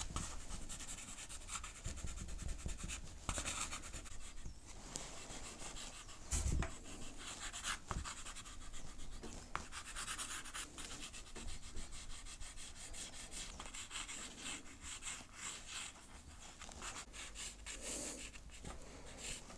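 Unison soft pastel stick scratching and rubbing across the painted surface in short, irregular strokes, with a dull knock about six and a half seconds in.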